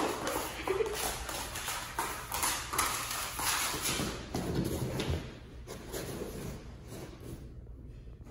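A standard poodle puppy's claws and paws clicking and scuffling on a laminate floor in quick, irregular steps as she plays. The steps grow quieter after about six seconds.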